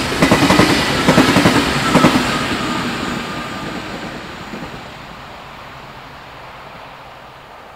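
V/Line VLocity diesel multiple unit passing at speed, its wheels clicking rapidly over the track for the first two seconds or so, then its rumble fading steadily as it runs away.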